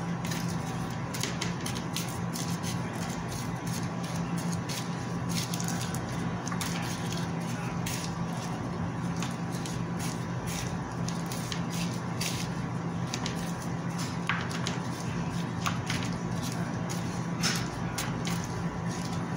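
Plastic food-prep gloves crinkling in quick irregular crackles as hands rub salt and pepper into raw chicken drumettes, over a steady low hum.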